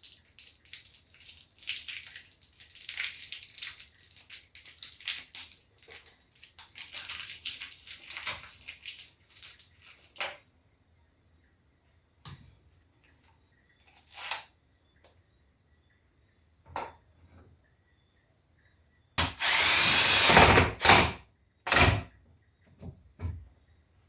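Scraping and clicking of parts being handled and set in place, then a few separate knocks. Near the end an electric drill runs for about two seconds, then briefly again, driving in the screws that secure a light-bulb receptacle.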